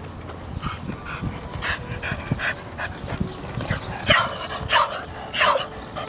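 Beagle panting in quick, regular breaths, with three louder, harsher breaths a little over halfway through.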